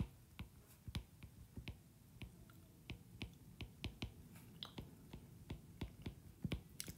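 Stylus tips tapping and clicking on a tablet's glass screen during handwriting: a string of faint, irregular clicks, about two or three a second.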